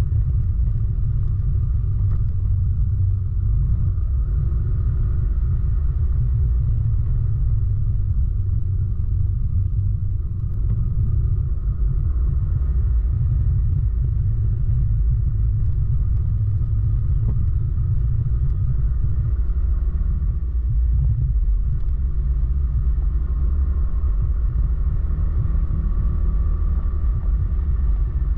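Steady low rumble of wind on the microphone and road noise from riding at speed, with the vehicle's engine running underneath.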